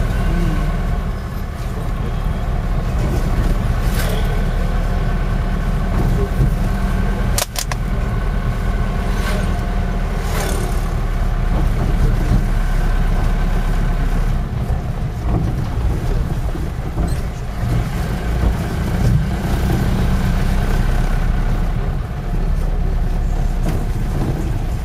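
Taxi's engine and road noise heard from inside the cabin, a steady low rumble as the car drives along, with a sharp click about seven and a half seconds in.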